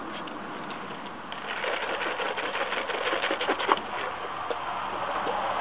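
A firework crackling: a rapid, irregular run of small snaps starting about a second in and stopping about four seconds in, with one sharper crack near the end of the run.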